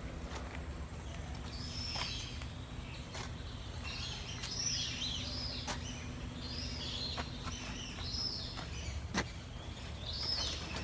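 Birds calling over and over in short, high, arching chirps, with a few sharp clicks.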